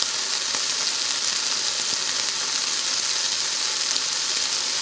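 Bacon strips sizzling steadily in a ridged grill pan, a constant high hiss with faint scattered crackles.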